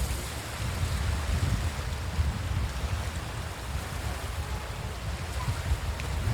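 Sea surf washing onto a sandy beach, with wind buffeting the microphone as an uneven low rumble.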